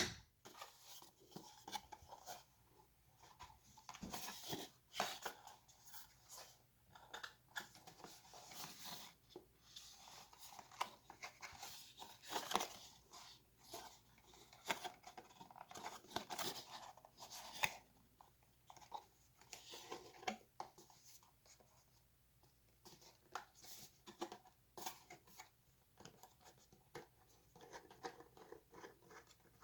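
Packaging being handled and opened: irregular rustling, scraping and small clicks of cardboard and plastic, with a pause of a couple of seconds past the middle.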